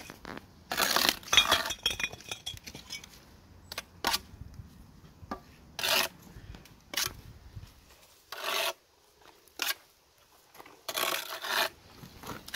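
Bricklayer's steel trowel scraping and clinking against mortar and brick in a series of short, irregular strokes, the loudest about a second in.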